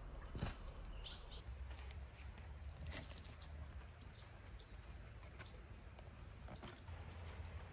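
Faint outdoor ambience: a footstep on dry leaf litter about half a second in, then scattered short high bird chirps over a low steady rumble.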